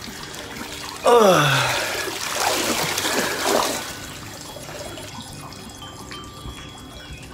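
Floodwater sloshing and splashing as someone wades through it, then settling to a quieter trickle. About a second in there is a loud voice-like sound that falls in pitch.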